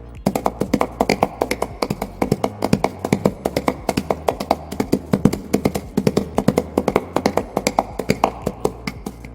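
A rapid, irregular run of sharp taps or clicks, several a second, over a faint steady low hum.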